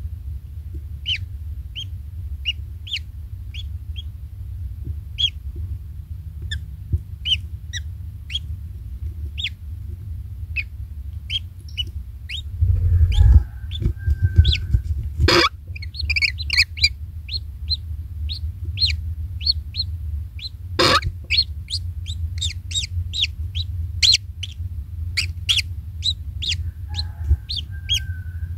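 Birds chirping: short high chirps repeating about once or twice a second, with two louder sharp calls and two lower calls near the middle and near the end, over a steady low rumble.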